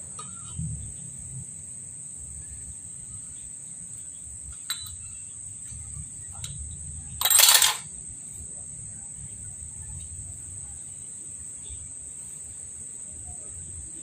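Steady high-pitched chirring of insects such as crickets, over a low background rumble. About halfway through, one loud, noisy burst lasting about half a second cuts across it.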